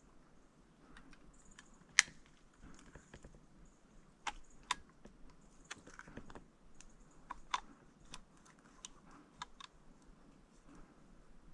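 Faint, irregular sharp clicks and small snaps, with the loudest one about two seconds in.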